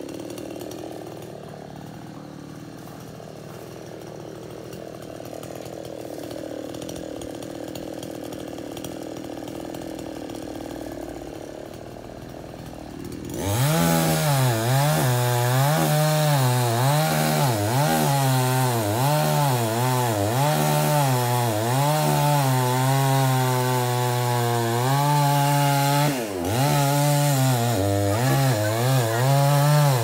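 Chainsaw cutting into a jackfruit tree trunk. It is fainter for the first dozen seconds, then about 13 s in it comes in loud at full throttle, its pitch repeatedly sagging and recovering as the chain bites into the wood, with a brief dip a little before the end.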